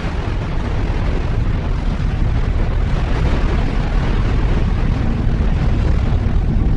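Loud, steady rumbling roar with heavy bass, building up over the first second and then holding.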